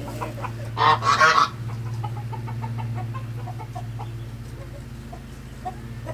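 A farmyard fowl gives one loud, raspy honking call about a second in, followed by faint short calls, over a steady low hum.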